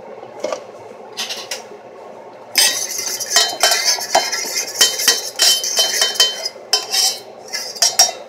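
A metal utensil stirring briskly in a bowl: a few light clinks, then from about two and a half seconds in a fast, continuous run of clinks and scrapes with a faint metallic ring.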